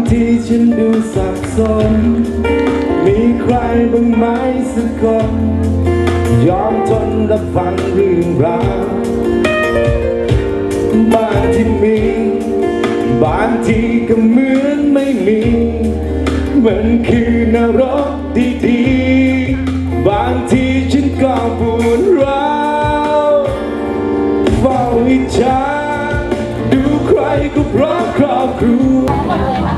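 A song: a voice singing over instrumental accompaniment with a bass line that comes and goes, continuous and loud.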